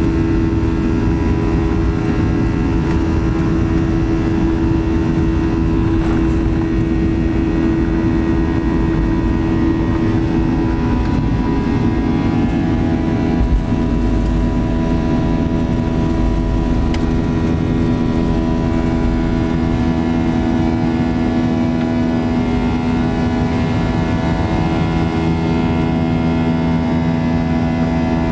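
Boeing 737-800's CFM56 engines at takeoff thrust, heard from the cabin over the wing: a loud, steady drone with several held tones, the engines' buzz, over a low runway rumble. There is a single thump about halfway through, and the low rumble fades in the last third as the plane lifts off.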